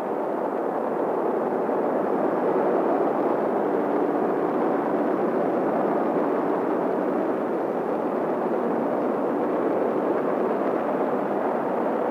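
Japanese H-I rocket's engines at ignition and liftoff: a steady rushing roar with little bass or treble.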